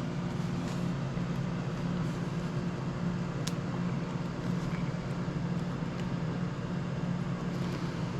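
Steady machine hum with an even hiss underneath, and a single faint click about three and a half seconds in.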